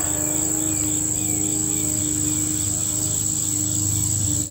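Steady, high-pitched chorus of crickets and other insects, with faint short falling chirps repeating about every half second and a low steady hum underneath.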